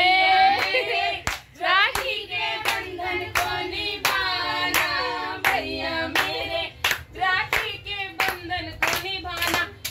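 Voices singing a song, accompanied by steady hand clapping on the beat, about one clap every 0.7 seconds.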